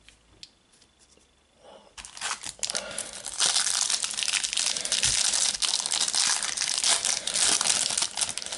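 Foil trading-card booster packet crinkling as it is taken from the box and torn open by hand. It starts about two seconds in and grows louder, a dense crackle that goes on until near the end.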